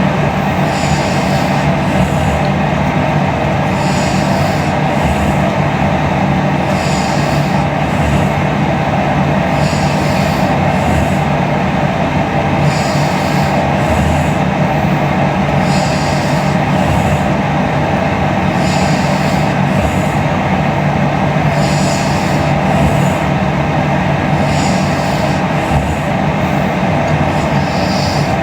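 A sleeping woman breathing and snoring in slow, regular cycles, with a hissy breath about every three seconds. A steady, loud rumbling noise lies underneath.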